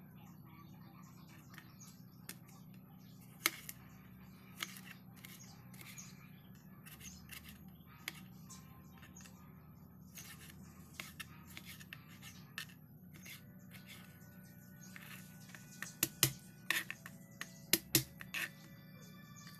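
Kitchen knife cutting garlic and tomato on a plastic cutting board: scattered light taps and clicks of the blade on the board, with a burst of louder knocks near the end.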